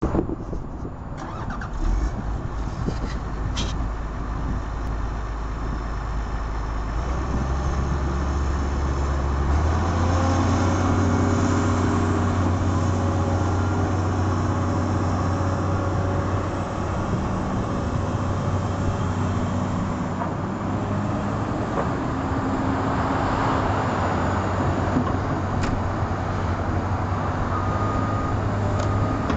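Komatsu PC200LC-8 excavator's six-cylinder turbodiesel running, its engine speed stepping up twice from a low idle to a higher steady speed. Near the end a few short, evenly spaced alarm beeps start.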